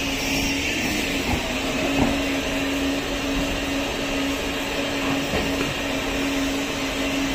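Automatic coach washing plant at work: rotating vertical brushes scrub the side of a slowly passing passenger coach while water sprays and runs off, over a steady mechanical hum.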